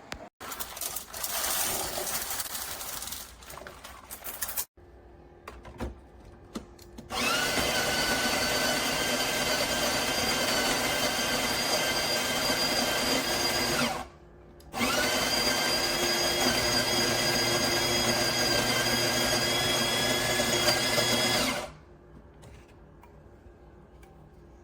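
Espresso machine's built-in burr grinder motor running in two runs of about seven seconds each. Each is a steady whine that spins up as it starts, with a short stop between them. A few seconds of hissing noise come before the first run.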